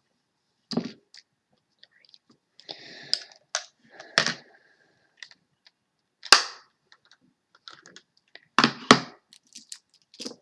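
Makeup products handled close to the microphone: a handful of sharp clicks and knocks with some light rustling in between, the loudest about six seconds in.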